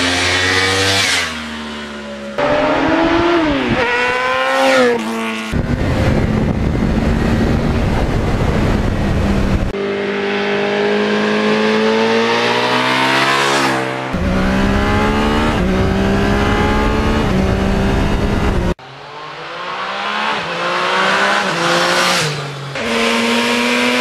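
Motorcycle engines revving up and shifting through gears as bikes accelerate past, the pitch climbing, dropping at each shift and climbing again. The sound is a string of separate clips that cut off abruptly every few seconds.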